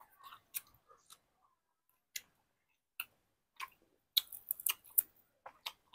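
Close-miked chewing and wet mouth clicks of a person eating with the hand, single sharp clicks spaced about half a second to a second apart. About four seconds in comes a quick run of crisp crackles as fresh leafy greens are handled and bitten.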